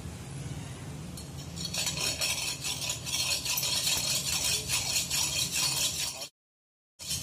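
Steel meat cleaver blade rubbed rapidly back and forth flat on a wet sharpening stone dusted with brick powder: a rhythmic scraping hiss that starts about two seconds in. It cuts off abruptly near the end and resumes a moment later.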